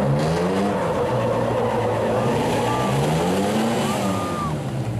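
Pickup truck engines revving under heavy load as two trucks pull against each other, climbing in pitch twice and dropping back, with tyres spinning in the dirt.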